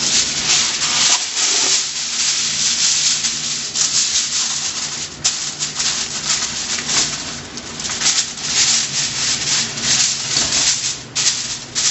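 Aluminium foil crinkling and rustling continuously as it is handled and pressed down over a pan, with sharp crackles about five seconds in and near the end.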